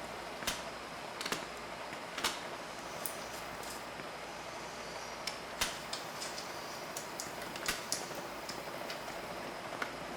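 Machine-shop background noise, a steady hum, with scattered sharp clicks and taps at irregular intervals.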